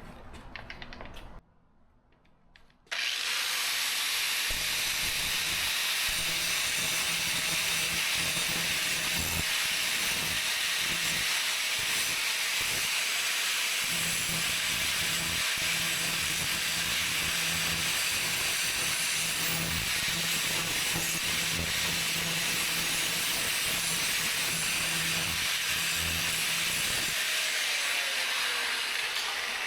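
Power grinder's spinning abrasive wheel grinding the steel cutting edge of a lawn mower blade, sharpening it: a steady loud grinding hiss that starts about three seconds in over the motor's hum. The hum drops out near the end while some hiss carries on.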